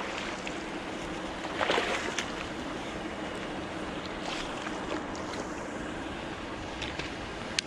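Steady rushing noise of wind and water, with a brief louder burst about two seconds in and a few faint clicks.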